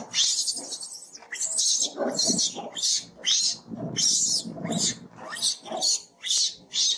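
Monkeys screeching, most likely a distressed baby monkey, in a rapid series of short, shrill cries at about two a second.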